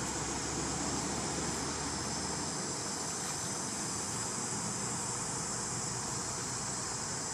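Steady outdoor ambience: a constant high insect drone over an even hiss, with a low rumble that fades out about two and a half seconds in.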